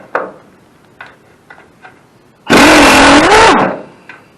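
A few light clicks of a tool on metal, then a power impact wrench runs in one loud burst of just over a second, spinning off a 1/2-inch nut; its pitch dips and rises under load.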